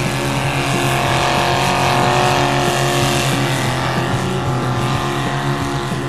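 Modified pulling tractor's engine running flat out under load as it drags the weight sled, a loud steady engine note that swells slightly about two seconds in.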